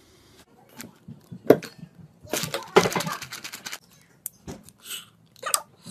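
Plastic PVA glue bottle being handled and its cap worked open: a sharp click, then a quick run of clicks and crackles about two seconds in, and scattered clicks after.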